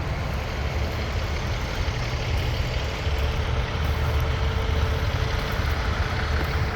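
John Deere 750K bulldozer's diesel engine idling steadily: a low rumble with a faint steady whine over it.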